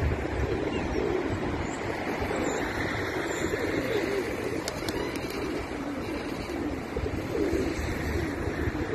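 Feral rock pigeons cooing, several wavering coos repeating and overlapping, over a steady low rumble.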